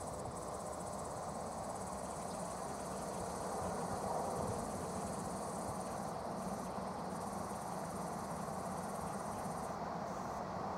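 Insects chirring steadily in a high, continuous band that breaks off briefly a few times, over a steady low rumble.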